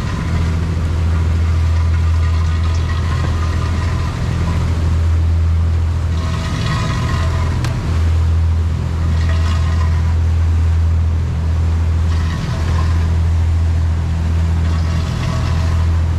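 Sport-fishing boat's engine running underway, a loud, steady low drone, with brief higher-pitched sounds over it now and then.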